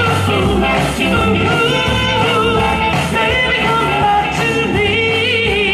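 Live band playing a rock-and-roll song with singing. A held, wavering note comes in near the end.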